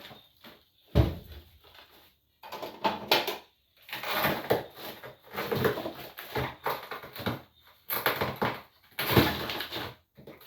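Household items and food containers being handled and set down while a refrigerator is emptied: irregular knocks, clatters and rustles, with a sharp knock about a second in.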